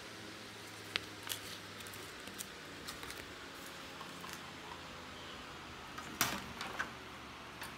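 Small handling sounds of unboxing: light taps, clicks and paper rustles as packaging and accessories are picked up and set down, with a short louder clatter about six seconds in.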